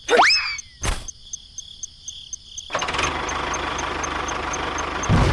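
A quick rising whoosh and a click, then about three seconds in a small motor starts running steadily with a fast buzzing rumble. Crickets chirp in the background.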